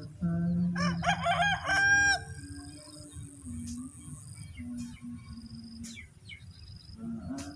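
A rooster crows once, about a second in: a run of quick notes ending in one held note. Low, drawn-out steady tones continue underneath.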